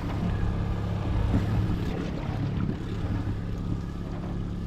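Boat motor running steadily at trolling speed.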